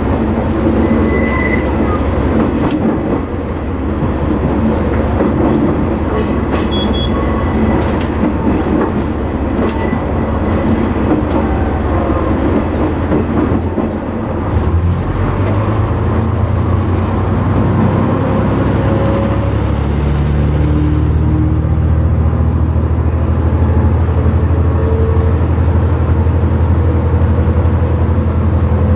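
Diesel railcar running on the track, heard from inside the front of the train: steady running noise with wheels clicking over rail joints and points in the first half. About halfway through, a deeper, steady engine hum grows stronger as the train gathers speed.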